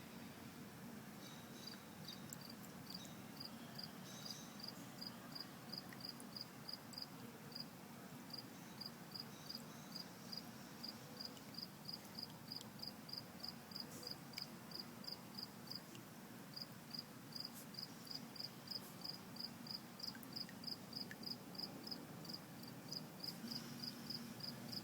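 Cricket chirping steadily, about three short high chirps a second with a brief pause midway, over a faint low hum.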